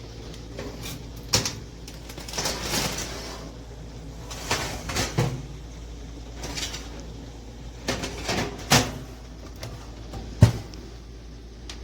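A series of irregular knocks and clatters, about six, the sharpest about ten and a half seconds in, over a steady low hum.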